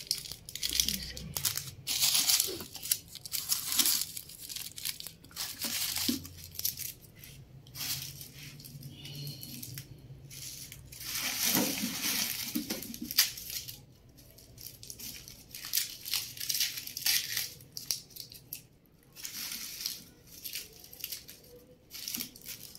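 Dry, papery onion skins crackling and rustling as onions are rubbed clean and sorted by hand, in irregular short bursts.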